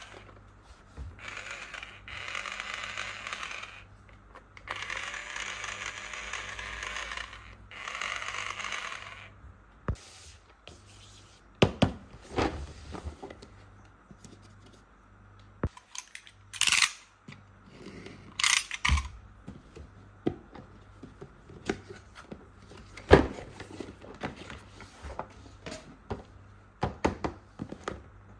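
A toy electric drill's small motor and plastic gears whirring in four bursts of a second to three seconds each. These are followed by scattered sharp clicks, taps and scrapes of small plastic toy tool parts being handled and set down.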